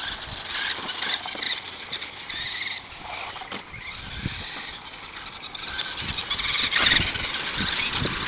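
Electric RC car driving across the yard: a motor whine and tyre scuffing over the ground, with a few short thumps as it bounces.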